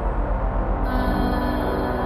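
Background music of layered, sustained drone tones over a low pulsing bass; a higher shimmering layer comes in a little under a second in.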